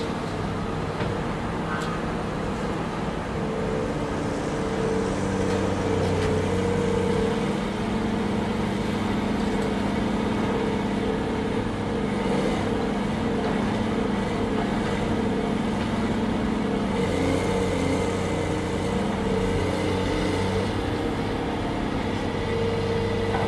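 Diesel engine of a Caterpillar 330C excavator with a grab, running steadily under working load as the machine slews.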